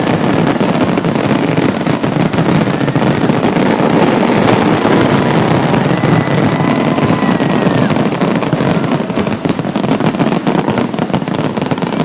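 Aerial fireworks display: a dense, continuous barrage of bangs and crackling shells, with a faint whistling tone about halfway through.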